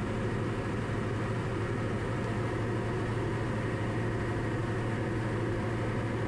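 Diamond DA40 single-engine light aircraft's piston engine and propeller droning steadily in cruise, heard from inside the cabin as a constant low hum with a rush of airflow noise.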